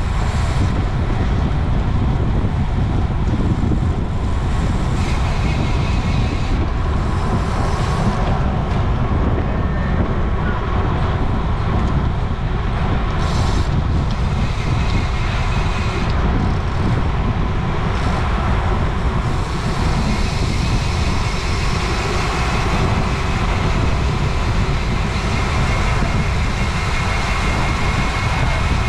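Steady wind rush buffeting the microphone of a camera riding along on a road bike at race speed, with a few brief hissy swells.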